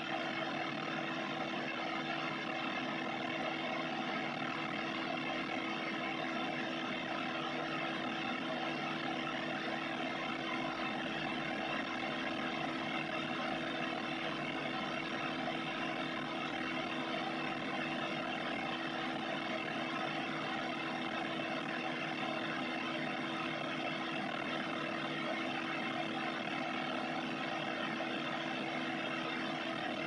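Steady, unchanging electronic space drone presented as the sound of the star Alcyone: a dense noisy hum with one clear low tone held beneath layered hiss.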